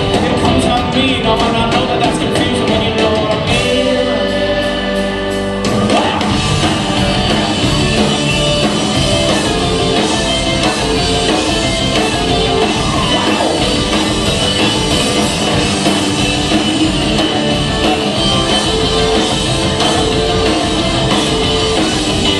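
Live rock band playing: electric guitars, bass and drum kit, with a singer. About three and a half seconds in, the drums drop out under held notes, and the full band comes back in about two seconds later.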